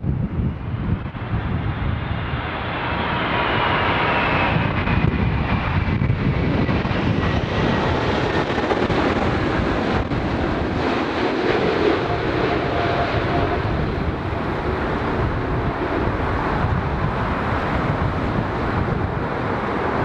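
Airbus A380 with Engine Alliance GP7200 turbofans on final approach, passing low overhead. Its engine whine falls in pitch over the first several seconds as it goes by, over a steady jet rumble and gusty wind on the microphone.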